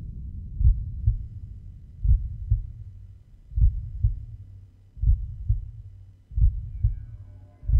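Heartbeat sound effect: deep double thumps, lub-dub, slow and even, about one pair every second and a half.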